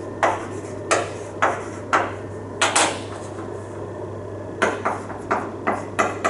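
Chalk tapping on a blackboard in handwriting strokes: a string of sharp clicks with a pause in the middle and a quicker run of clicks near the end, over a steady low hum.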